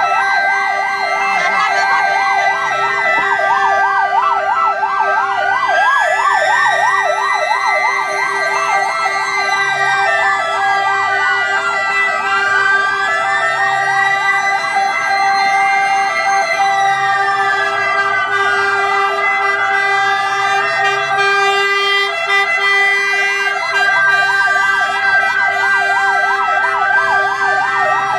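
Several ambulance sirens sounding together: a fast warbling yelp over slower wails that rise and fall every few seconds, loud and continuous.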